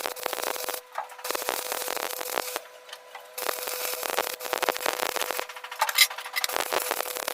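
Metalworking on a truck drive shaft: a harsh rasping, scraping noise that comes in stretches of one to two seconds with short breaks, over a faint steady hum.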